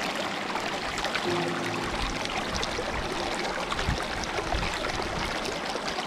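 Flowing water making a steady rushing noise, with soft background music under it.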